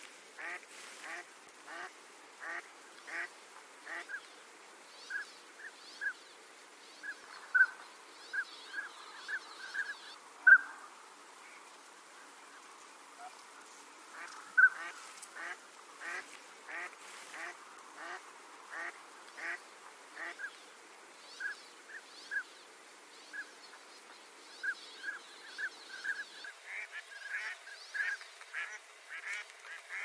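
Ducks calling: a steady run of short quacking, honking calls, about one or two a second, with a few louder ones scattered through and the calling getting busier near the end.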